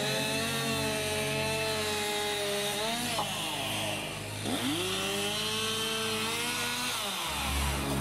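Two-stroke chainsaw running at high revs while cutting through a fallen tree's trunk. The revs drop off a little past the middle, climb back to full speed, and fall again near the end.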